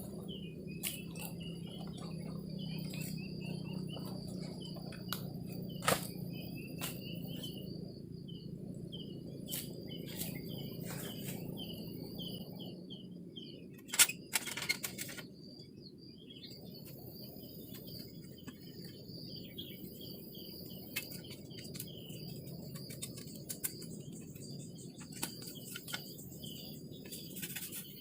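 Woodland ambience: a steady high insect buzz and a bird's rapid, repeated short chirps over a low steady rumble, with scattered clicks and knocks, the loudest about 14 seconds in.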